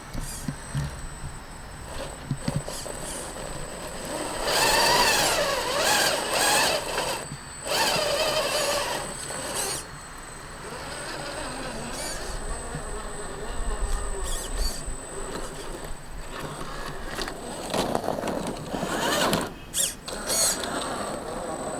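Electric motor and drivetrain of a 4x4 RC rock crawler whining as it is driven, the pitch rising and falling in three louder surges with quieter running between them.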